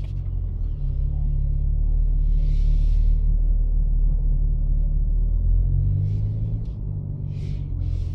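BMW G80 M3's twin-turbo straight-six running low and steady at crawling speed, heard from inside the cabin.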